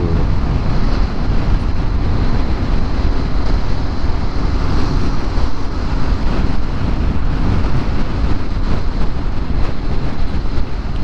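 Steady wind rush and road rumble on the microphone of a Honda Forza 350 scooter moving at speed, with no clear engine note standing out.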